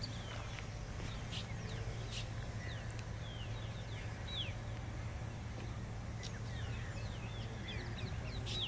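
Birds calling in the open: scattered short, high chirps that each drop quickly in pitch, several in quick succession near the end, over a steady low rumble.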